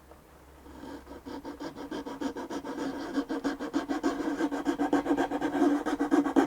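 Rapid back-and-forth rubbing strokes of an abrasive hand tool on wood, shaping a violin's new fingerboard and nut. The strokes begin about a second in and grow louder.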